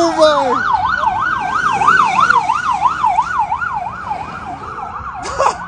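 Police car siren in a fast yelp, its pitch warbling up and down about four times a second and growing fainter over the last couple of seconds. A brief thump comes near the end.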